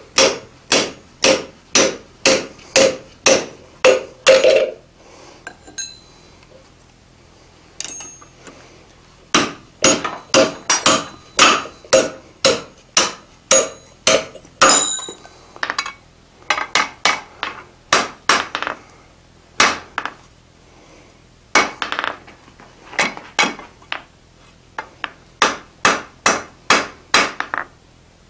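Blacksmith's hand hammer striking a hot punch and a red-hot iron bar on the anvil while punching holes: runs of sharp metallic blows about two a second, with short pauses between runs.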